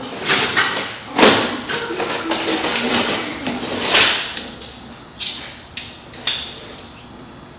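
An irregular series of sharp knocks and clanks, loudest about a second in and again about four seconds in, thinning out in the last few seconds.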